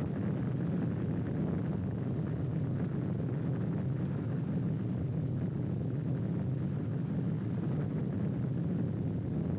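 Steady low rumble of the atomic bomb blast on an old film soundtrack. It is even and unbroken throughout, with no separate bangs.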